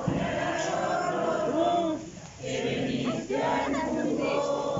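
A crowd of men and women singing together in unison, a traditional lullaby carol for the Christ Child, with long held notes and a short breath pause about two seconds in.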